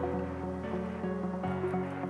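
Background music of sustained chords over a bass line, the bass note shifting about one and a half seconds in.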